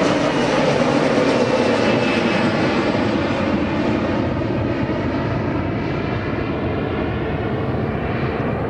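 Embraer E-Jet twin-engine regional airliner climbing away just after takeoff, its jet engines at takeoff power: continuous engine noise with a whine that slides down in pitch, slowly fading as the aircraft recedes.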